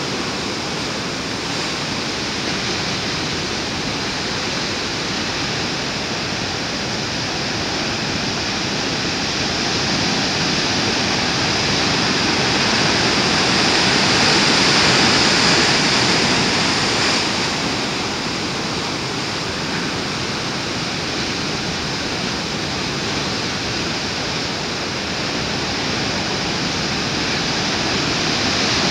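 Heavy ocean surf breaking on a rocky shore: a continuous rush of churning white water that swells louder about halfway through as a big wave breaks close by, then eases back.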